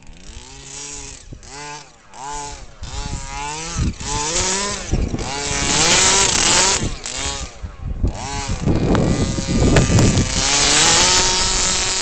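Smartech 23cc Bigfoot RC truck's two-stroke gas engine with a DDM tuned pipe, revving up and falling back again and again as the throttle is worked. Near the end it holds a steadier high pitch.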